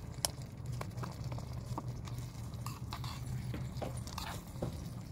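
Tiny steel slotted spatula clinking and scraping against a small steel pan while thick masala is stirred: irregular sharp taps, the loudest about a quarter-second in, over a steady low rumble.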